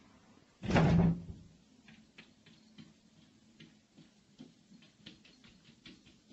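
A series of light taps on window glass as a cat paws at the pane where a man's hand presses from outside. A louder short rush of noise comes about a second in.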